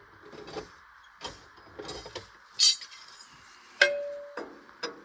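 Metal hand wrenches clinking and knocking as they are handled and tried on a hydraulic hose fitting. One sharp metallic clink, a little before four seconds in, rings briefly.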